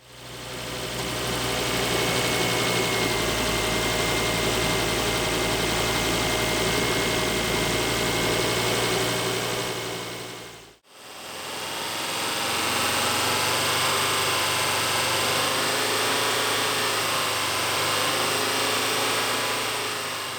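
Driving sound of a 2004 Volvo S60 2.4 five-cylinder with a five-speed manual, a whine over the engine and road noise; the whine comes only when driving, not at idle or when revving. A steady high whine runs through the first half. After a short break about eleven seconds in, a second stretch carries several lower, wavering tones.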